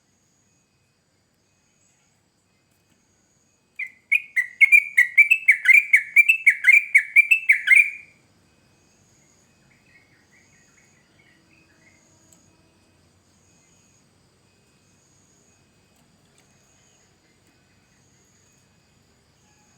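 Yellow-vented bulbul (trucukan) singing: a loud burst of rapid, bubbly, repeated notes, about three a second, starting about four seconds in and lasting about four seconds, followed by a few faint notes.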